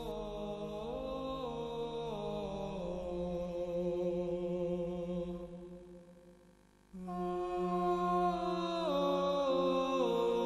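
Slow church chant by voices, a steady drone note held under a melody that moves in small steps. It fades out about six seconds in and a new phrase starts abruptly a second later.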